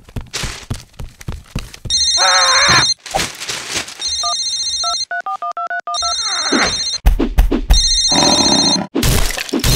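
Cartoon sound effects for a mobile phone: a run of thumps, then a phone ringing in repeated bursts of a high electronic trill, with a short run of beeping tones in between. Near the end the ringing continues over loud crashing noise.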